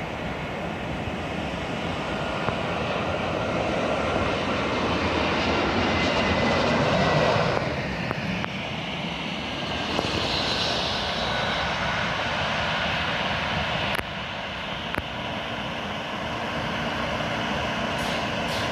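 Jet airliner engines, a LATAM Airbus A321 landing close by. The engine noise builds to a peak about seven seconds in, then changes abruptly to a high engine whine as the jet passes low near touchdown. The sound drops suddenly again about fourteen seconds in.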